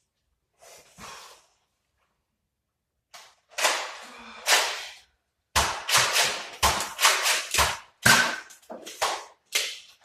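Nerf blasters firing foam darts: a rapid run of sharp pops and smacks, about two or three a second, starting around the middle after a quiet stretch.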